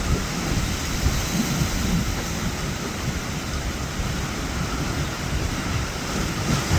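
Wind rumbling and buffeting on the microphone over a steady wash of surf and moving water.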